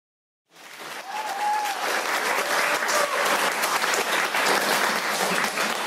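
Audience applauding, with a few cheers near the start. It fades in after half a second of silence and soon settles to a steady level.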